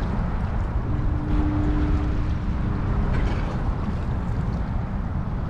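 Wind buffeting the microphone over open water on a small boat, a steady low rumble. A faint steady hum joins about a second in and fades out after about two seconds.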